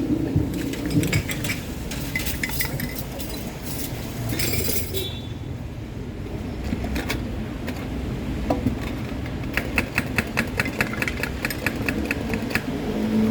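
Metal utensils, cups and glassware clinking and knocking while iced drinks are mixed, with a quick, even run of clinks about ten seconds in that lasts some three seconds.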